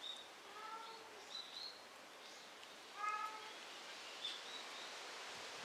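An abandoned kitten mewing twice, short faint cries, with small birds chirping over a faint outdoor hiss.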